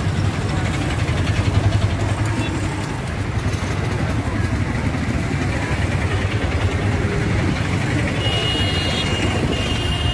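Street traffic noise: a steady rumble of motor vehicles on the road, with a few thin high tones in the last couple of seconds.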